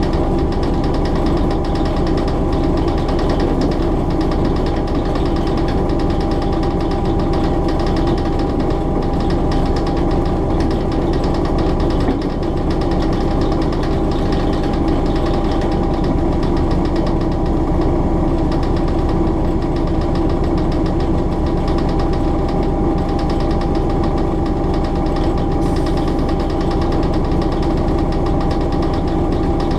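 Diesel engine of a Hastings DEMU ('Thumper') motor coach, an English Electric four-cylinder 4SRKT, running steadily under power as the unit travels at line speed, heard from the cab. It keeps up an even, thumping beat.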